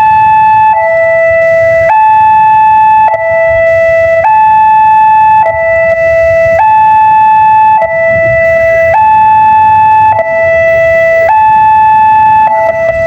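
Railway level-crossing warning siren sounding a loud two-tone hi-lo wail, switching between a higher and a lower tone about every second and a bit, signalling that a train is approaching.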